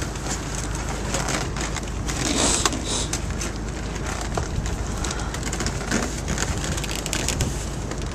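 Steel baling wire being threaded through its eye and twisted tight around a cardboard bale: irregular scraping, rustling and clicking of wire against wire and cardboard, over a steady low hum.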